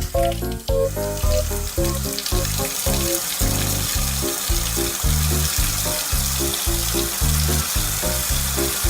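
Food-frying sizzle starting right at the beginning, steady throughout, over cheerful background music with a steady, even beat of bass notes.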